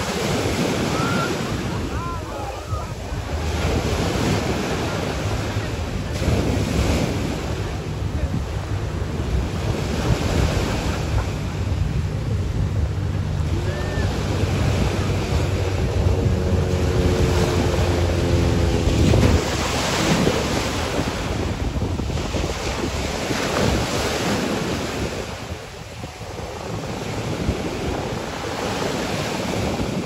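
Ocean surf breaking and washing up the sand in repeated surges every few seconds, with wind rumbling on the microphone.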